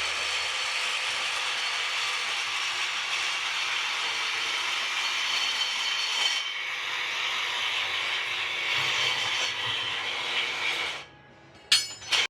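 Steel rebar being cut by a power saw: a steady grinding hiss that eases briefly about six seconds in and stops about eleven seconds in, followed by two sharp metallic clanks.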